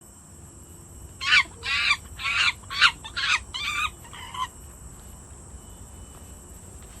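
A bird calling a series of seven loud, harsh cackling notes, the last ones shorter and fainter, over a steady high-pitched insect drone in the forest.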